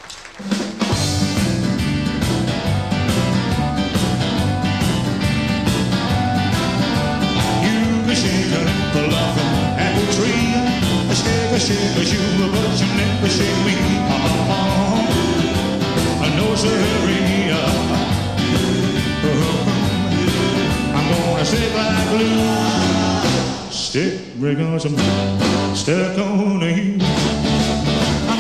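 Live rock-and-roll band with electric guitar, bass and drums, and a man singing. The band comes in suddenly under a second in and plays on steadily, with a brief stop near the end.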